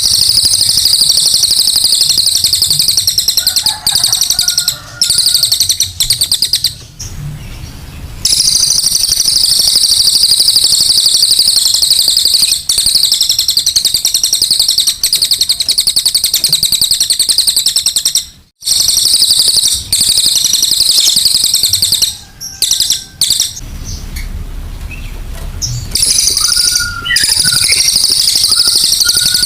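Cililin singing its fast, very high trilling song in long unbroken stretches, with a few short pauses. This is the full-voiced 'tembakan' song that bird keepers use as training material.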